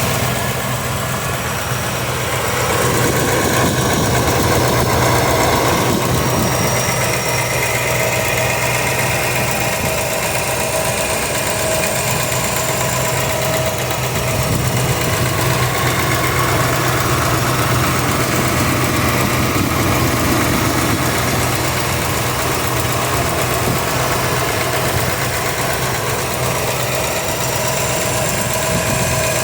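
Chevrolet 305 small-block V8 idling steadily with a ticking from the driver's side of the engine, which the owner suspects is either an exhaust leak or a worn lifter.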